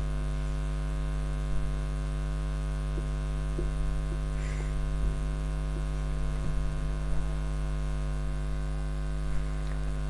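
Steady electrical mains hum with a stack of overtones, carried on the recording, with a few faint short marker strokes on the whiteboard.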